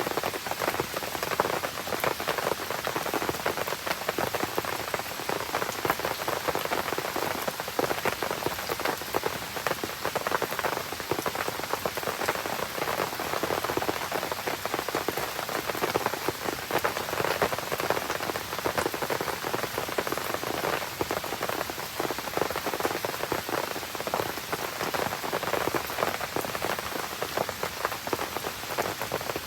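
Steady rain falling, a dense, even patter of many drops striking surfaces.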